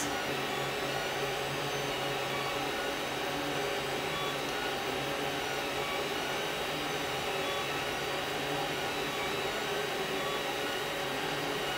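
Creality CR-10 3D printer printing the first layer: a steady whir from its cooling fans, with several faint steady tones from the motors as the print head moves across the bed.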